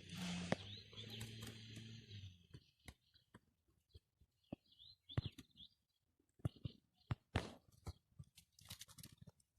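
Small birds chirping faintly over a low steady hum that stops about two seconds in, followed by scattered light clicks and rustles with a few more faint chirps.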